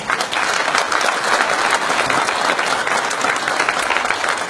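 An audience applauding, with many hands clapping at once in a dense, even patter.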